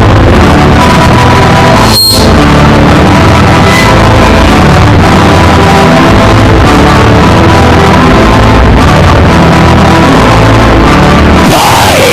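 Loud, dense background music with sustained tones, briefly dropping out about two seconds in.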